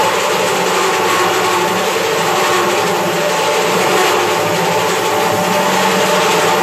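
Handheld electric drill running steadily under load while boring a hole through steel plate, a constant motor whine with no let-up.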